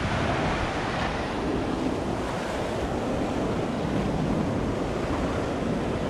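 Small Caribbean waves washing in and out on a sandy shore, a steady hiss of surf, with wind buffeting the microphone.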